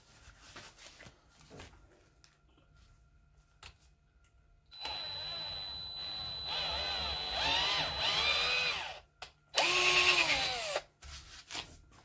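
Electric hand drill boring a hole into thin steel square tube clamped in a bench vise: a run of about four seconds, its pitch dipping and rising several times, then a shorter second burst that winds down. These are holes being drilled for tapping.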